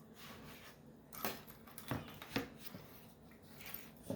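Map puzzle pieces being handled and set in place: a few light clicks and scuffs.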